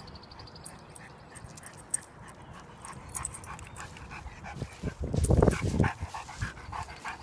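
Young Newfoundland dog panting close by after a run: quick, even breaths from a couple of seconds in. A loud, low rumble about five seconds in is the loudest part.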